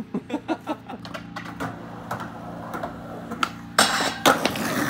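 Skateboard rolling over concrete, with a quick run of clicks at the start. About four seconds in, the trucks lock onto a metal stair handrail and grind down it with a loud, harsh scrape.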